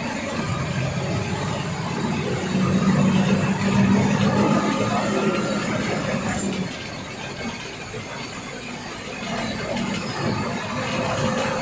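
Bus engine running on the road with road and cab noise heard from the driver's seat. It grows louder for a few seconds in the middle, then eases off.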